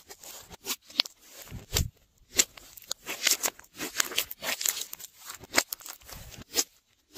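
Hands squeezing and kneading a large mass of glossy slime, making irregular sticky pops and crackles of varying loudness, with brief pauses about two seconds in and near the end.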